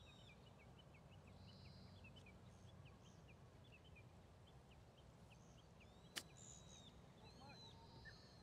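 Faint birds chirping: a run of short, quick chirps about three a second with a few longer arching calls. A single sharp click about six seconds in is the loudest sound.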